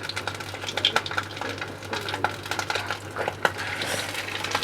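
Batter-coated bhetki fish pieces deep-frying in hot oil: a steady sizzle with frequent crackles and pops.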